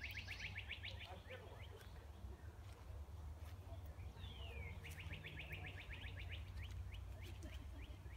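A songbird singing: each song is a high note sliding downward into a rapid trill, heard once ending about a second in and again about four seconds in. A low steady rumble runs underneath.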